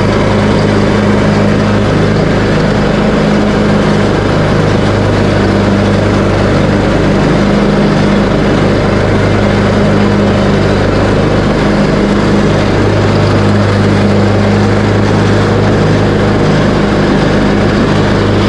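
Craftsman T130 riding lawn tractor's engine running steadily under load, with the mower deck engaged and cutting dry grass. The drone holds one even low pitch throughout.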